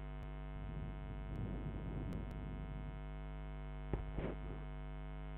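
Steady electrical mains hum with a stack of overtones, picked up on the recording. A faint muffled murmur comes through about midway, and there is a single sharp click about four seconds in.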